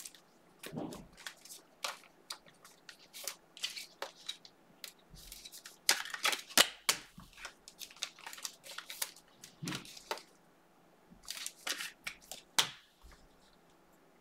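Trading cards being handled: a run of short, irregular rustles and clicks as cards slide against each other and stacks are set down and picked up, going quiet near the end.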